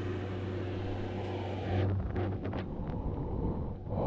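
Steady low hum of a window air-conditioner unit, with a few soft knocks and rustles from the camera being handled up close in the second half.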